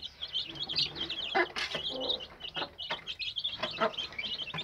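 Newly hatched chicks peeping rapidly and continuously at a high pitch, with a few short taps among them as the birds peck at starter feed in the tray.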